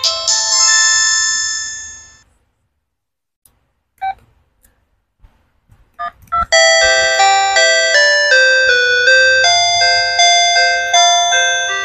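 Polyphonic ringtones from a Sanex SC-7090i phone's CMX synthesizer, played through its small loudspeaker: one chime-like melody dies away in the first two seconds, a few short key clicks and beeps follow, and about six and a half seconds in the next ringtone starts, a quick tune of bell-like notes that each decay.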